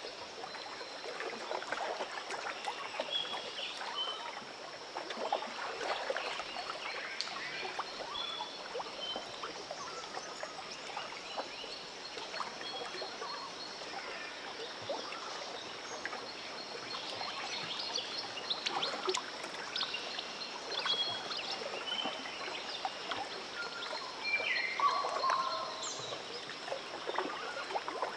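Lake water lapping and trickling at the shore with a steady high-pitched drone behind it, and scattered short chirps throughout. The chirps come thicker and louder near the end.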